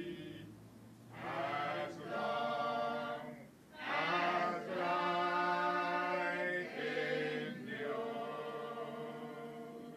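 Choir singing slow music in harmony, long held notes in phrases a few seconds long with short breaths between them.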